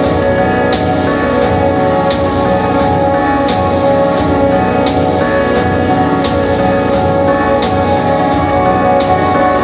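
Ambient electronic music: layered, sustained drone chords, with a short high hiss that recurs about every second and a half like a slow pulse.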